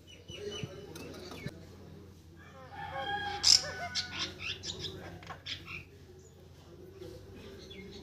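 Chestnut-tailed starling calling: a quick run of short, varied chattering notes about three seconds in, loudest near the middle, with a few fainter notes before and after.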